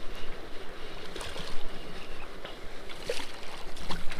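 Water splashing in short surges as a hooked young wiper thrashes at the pond's edge while it is landed, over steady wind noise on the microphone.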